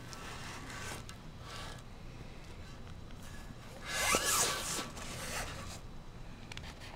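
Handling noise from a square ceramic tile trivet being turned over by hand: rubbing and scraping, loudest about four seconds in.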